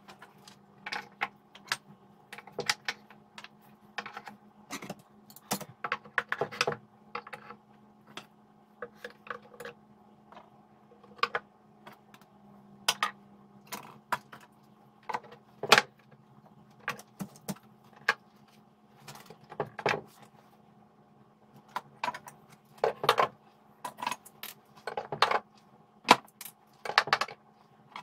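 Steel hand tools (files, a rasp, chisels, small saws) being set into the wooden racks of a tool cabinet door: irregular clinks, taps and knocks of metal against wood and metal holders, over a faint steady hum.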